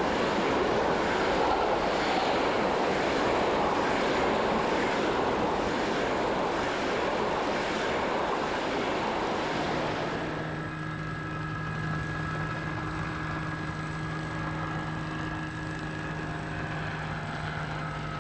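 ICE high-speed electric train passing at speed with a loud, even rushing noise. About ten seconds in, this gives way to a quieter, steady hum with a few steady high tones.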